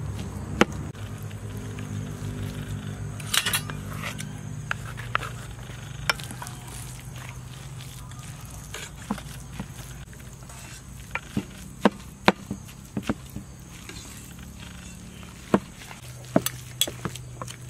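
A metal spoon knocking and scraping against a metal mixing bowl in irregular sharp clicks as ramen noodles are tossed with minced pork and carrot, over a low steady hum.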